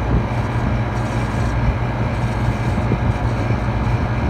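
Steady low hum of a walk-in cooler's drop-top refrigeration unit running, with a few light clicks as the mechanical defrost time clock's dial is set.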